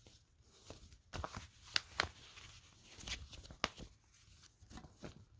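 Faint rustling and scattered light taps of paper being handled as an instruction leaflet is unfolded.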